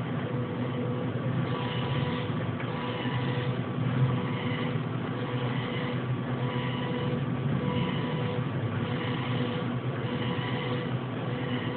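Steady mechanical hum with a constant drone, even in loudness throughout, with faint hissy patches recurring about once a second.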